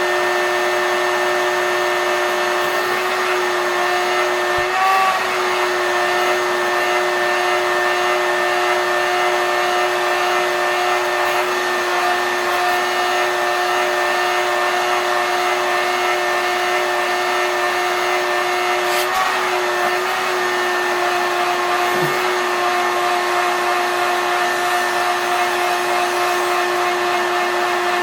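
Shop vac running steadily with a continuous motor whine and rush of air, sucking dust out of the inside of a plasma TV, with a few faint brief knocks of the nozzle.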